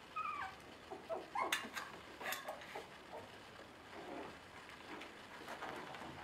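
Five-week-old Bolonka Zwetna puppies at play: a short, high, slightly falling squeak from a puppy right at the start, then a few small yips mixed with several sharp clicks and knocks during their scuffle.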